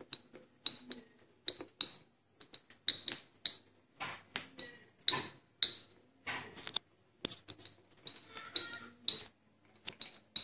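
A glass stirring rod clinking against the inside of a glass conical flask while stirring an onion puree. The clinks are irregular, about two a second, each with a short bright ring.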